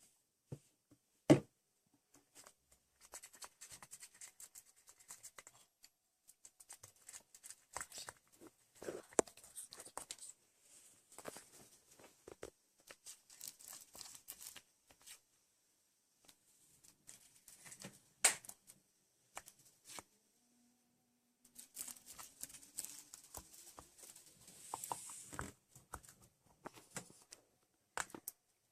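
Hands working slime, making scattered sticky crackles, clicks and short tearing rustles, with a few sharper snaps.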